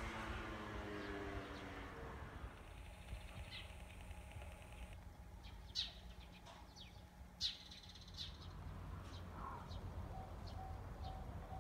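Small birds chirping in short, scattered calls, while the hum of a departing train's electric motors fades out over the first two seconds. Near the end a faint tone starts dinging about twice a second.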